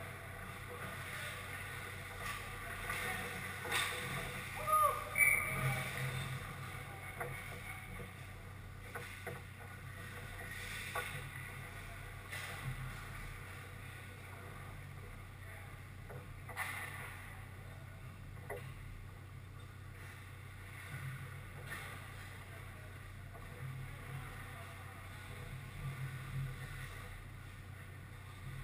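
Ice hockey rink ambience: the steady hum of the arena with scattered knocks and clacks of sticks, puck and skates on the ice. There is a brief high tone about five seconds in.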